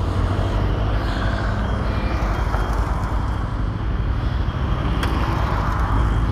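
Steady road noise from a moving vehicle, with a single sharp click about five seconds in.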